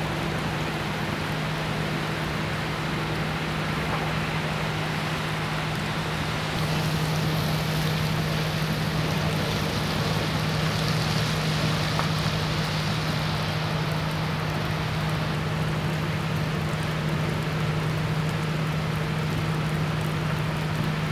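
Fire apparatus engines running steadily at a working fire, a constant low drone over a steady hiss. It grows a little louder about six seconds in.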